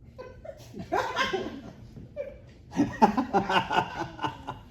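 People laughing in two bursts, the second longer and louder.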